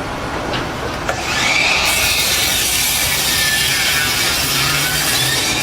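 Steady rasping, scraping noise of a tool working material, louder from about two seconds in, with a faint wavering whine over it.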